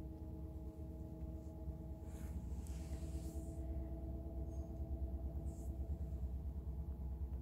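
A steady low hum with a few faint held tones. Faint soft rustles of a blanket as a puppy burrows into the bedding, about two to three seconds in and again near six seconds.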